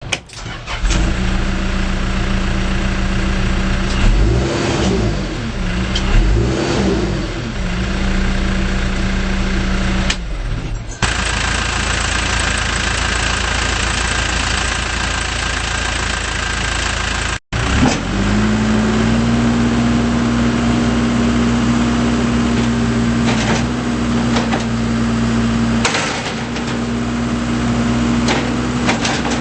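Case 580M Series 2 backhoe loader's diesel engine running, revved up and back down twice about four and six seconds in, then running steadily at a slightly higher speed after a break.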